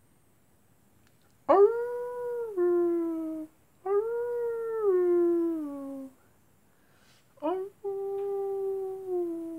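Three long howls in the manner of a wolf, each swooping up at the start, holding, then dropping down in pitch.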